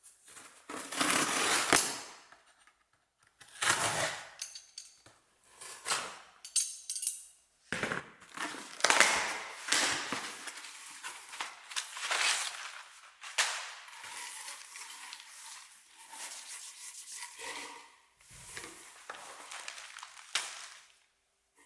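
Paper and packaging being handled and unwrapped: irregular bursts of rustling and crinkling with short pauses between them, louder in the first half and softer near the end.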